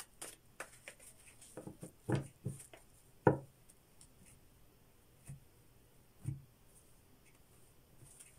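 A deck of tarot cards being shuffled by hand, then tapped and set down on a velvet-covered table: scattered soft card flicks and taps, the sharpest about three seconds in.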